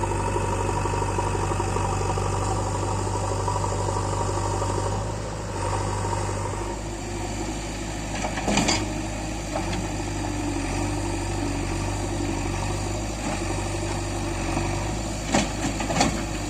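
JCB 3DX backhoe loader's diesel engine running steadily, settling to a lower note about five seconds in. A few short, sharp knocks come through about halfway and twice near the end.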